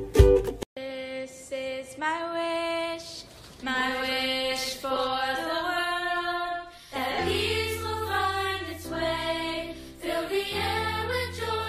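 Music: a plucked-string strum cuts off within the first second, then choir voices sing held notes in harmony, joined by a low bass note about halfway through.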